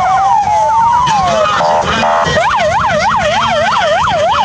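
Electronic vehicle siren on a traffic-control pickup: a slow rising wail, a brief buzzing horn tone a little before the halfway point, then a fast yelp of about four sweeps a second.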